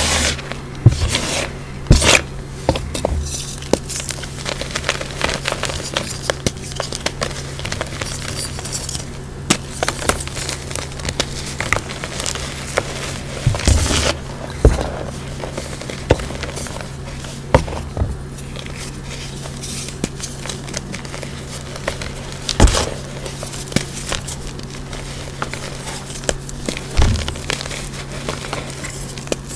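Reformed gym chalk being crushed and crumbled by hand in loose chalk powder: irregular dry crunching and crackling, with louder crunches now and then, over a steady low hum.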